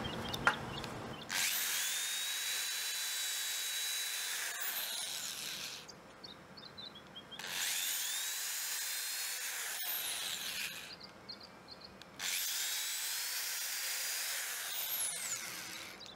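Corded electric drill with a 1/8-inch bit drilling three pilot holes into a treated wooden 4x4 post: three runs of a few seconds each, each starting with a rising whine as the motor spins up and ending as it winds down.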